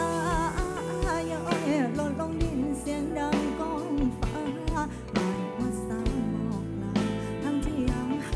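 Live band music with a singing voice: an ornamented melody that slides and bends between notes, over steady bass and drums.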